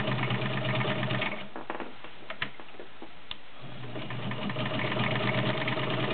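Vintage all-steel Kenmore 1303 sewing machine running, stitching through six layers of denim with a size 16 needle. It stops for about two seconds, with a couple of sharp clicks in the pause, then runs again.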